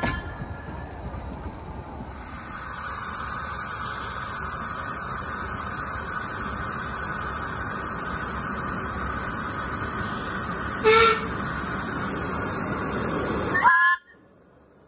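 Miniature steam locomotive hissing steam steadily, with a short whistle toot about eleven seconds in. A brief rising whistle sounds near the end before the hiss cuts off suddenly.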